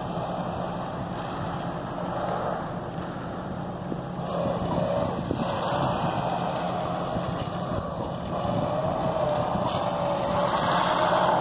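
Radio-controlled PistenBully model snow cat running on its tracks, a steady electric motor whine with clattering treads. The whine wavers in pitch and grows louder about four and eight seconds in.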